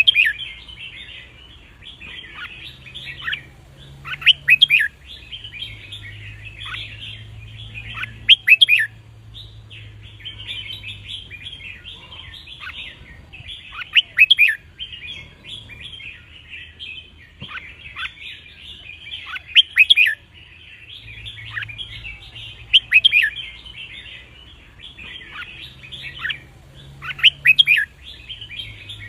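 Red-whiskered bulbuls singing: a constant twittering chatter, with loud, sharp song phrases breaking out about every four to six seconds.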